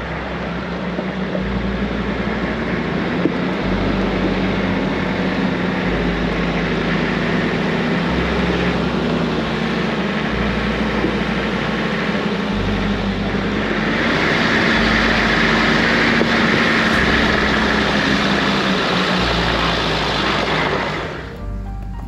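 Off-road vehicle driving along a track: steady engine and tyre noise that grows louder about two-thirds of the way through and falls away near the end.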